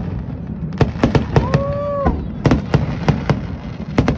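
New Year fireworks going off: a string of sharp, irregular bangs over a steady low rumble. A brief held tone sounds about a second and a half in.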